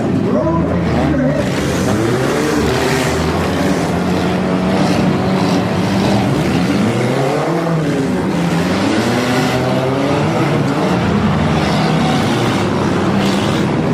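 Several demolition derby cars' engines running and revving together, their pitches rising and falling as they accelerate and back off.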